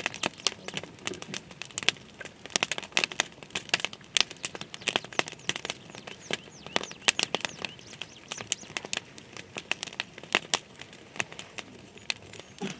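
Dense, irregular crackling and crinkling: many sharp snaps in quick succession, with no steady tone.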